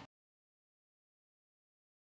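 Silence: a faint room tone cuts off abruptly right at the start, leaving nothing at all.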